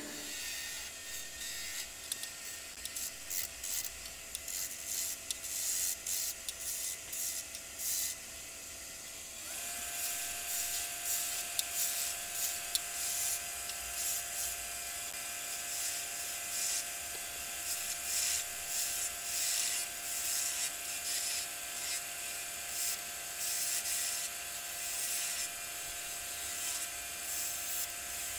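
Wood lathe running with a steady whine, its tone stepping higher about ten seconds in, while a turning tool cuts a small spinning wooden spindle in repeated short, hissing scraping passes.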